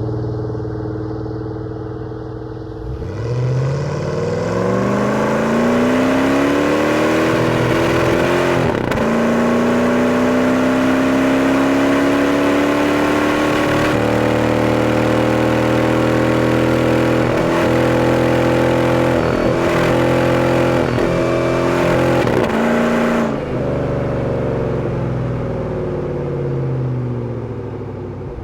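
Jeep Grand Cherokee 4.7 V8 with a Magnaflow exhaust, running steadily and then accelerating hard from about three seconds in, its pitch climbing. There is a brief break about nine seconds in, like a gear change. It holds high revs with a few short dips, then lets off about twenty-three seconds in, the pitch and level falling as it slows.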